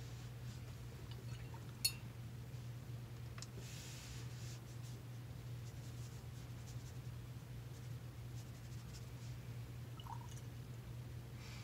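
Quiet watercolour brushwork over a steady low hum: a sharp click about two seconds in, a brief soft swish about four seconds in, and faint brush strokes on paper.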